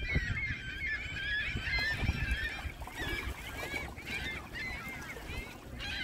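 A large flock of gulls calling, many short calls overlapping one another without pause, over a low rumble.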